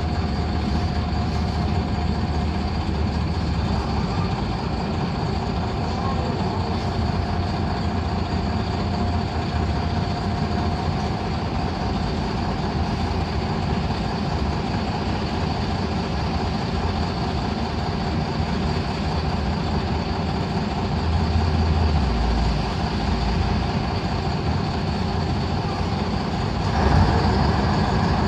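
LiAZ-5256 city bus under way, heard from inside the cabin: its YaMZ-236 V6 diesel running steadily under the road and cabin rumble. It gets briefly louder near the end.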